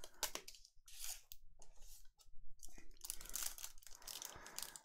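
Foil wrappers of trading-card packs crinkling and rustling in the hands, in short irregular bursts.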